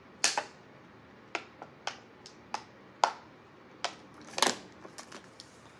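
Thin plastic water bottle crackling in irregular sharp clicks as it is gripped and drunk from, the plastic flexing under the hand and suction. The loudest crack comes about three seconds in, with another cluster a second and a half later.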